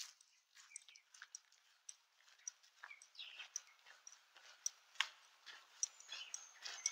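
Faint bird calls: many short chirps and clicks with a few brief high whistled notes, slowly growing louder.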